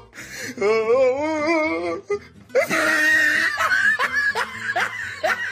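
A person laughing over background music.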